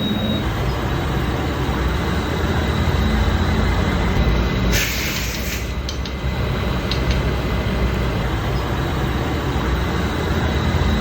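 Baoji CQ6280C engine lathe running, a loud steady mechanical noise with a faint high tone. About five seconds in there is a hiss lasting about a second.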